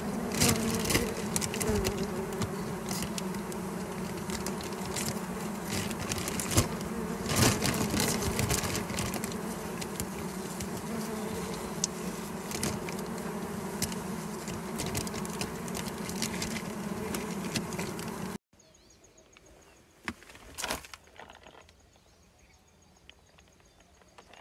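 A dense cluster of honeybees buzzing steadily while their comb is broken out and bagged, over the crackle and rustle of a plastic bag being handled. About three quarters of the way through the buzzing cuts off abruptly, leaving near quiet with a couple of soft knocks.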